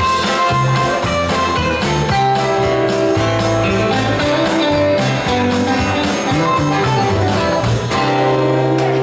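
Instrumental guitar ending of a country ballad, with low notes moving under the melody, settling on a held final chord near the end.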